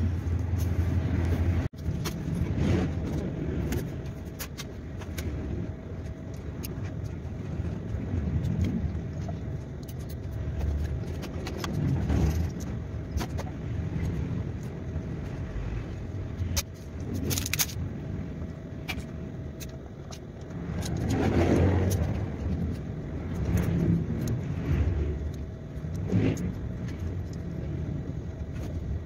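Handling noise and scattered clicks from a fishing reel being worked by hand, over a steady low rumble and a faint steady hum.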